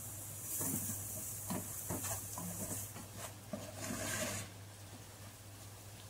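Wooden spoon scraping and knocking against a nonstick pot while stirring onions and spices frying in oil, with a faint hiss of sizzling for the first few seconds and a low steady hum underneath.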